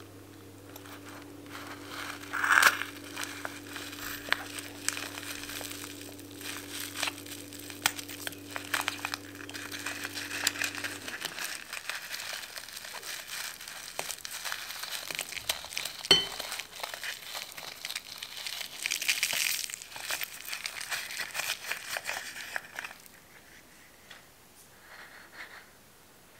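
Rubber balloon being snipped with scissors and peeled off its filling by hand: continuous crinkling and squishing of the rubber, with a sharp snip about two and a half seconds in and another about two thirds of the way through, then the handling stops near the end.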